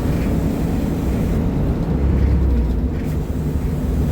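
Mercedes-Benz O500UDA bus's diesel engine running with a steady deep rumble, the low drone growing stronger for about a second near the middle.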